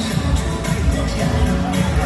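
Pop dance music for a line dance routine, with a steady, pulsing beat.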